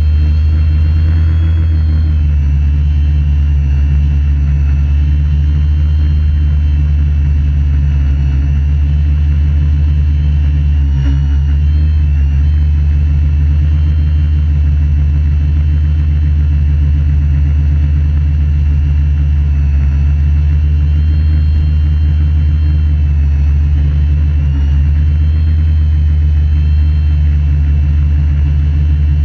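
AeroQuad quadrotor's electric motors and propellers running steadily in flight, heard from a camera mounted on the craft: a loud drone with faint high whining tones that waver slightly up and down as the motor speeds adjust.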